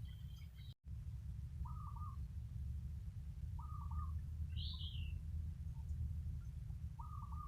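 A bird calling outdoors: three short, similar calls a couple of seconds apart, with one higher call between them, over a steady low rumble.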